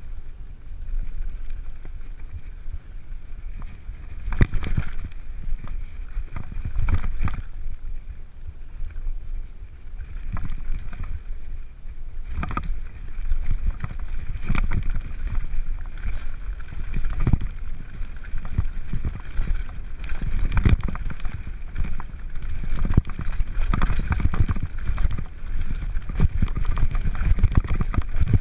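Mountain bike rolling down a rocky trail: a steady rumble of wind and vibration on the microphone, with the rattle and knocks of tyres, frame and chain over stones, growing busier near the end.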